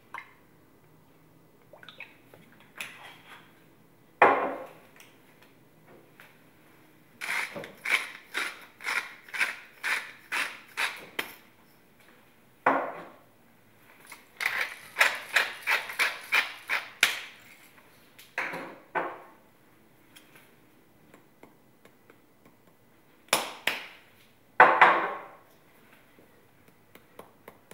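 Seasoning being added to a bowl of flour: two runs of quick, even strokes about two a second from a spice container worked over the bowl, and several separate knocks as bottles and containers are set down on the worktop.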